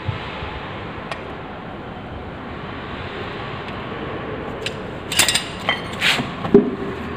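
Pliers working the steel lock tabs on the motorcycle's rear sprocket bolts, with metal tools clinking, over a steady background hiss. A few sharp metallic clicks and clinks come in the last two seconds, the loudest near the end.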